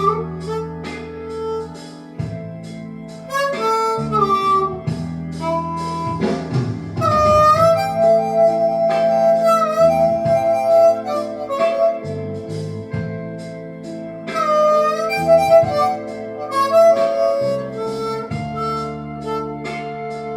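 Blues harmonica playing a solo with bent, sliding notes over a band backing with a bass line and a steady beat.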